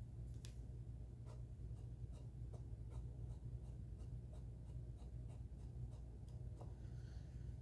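Soft, irregular scratching and small taps of a small applicator being rubbed and dabbed on a plastic model ship hull to blend in a weathering wash, over a steady low hum.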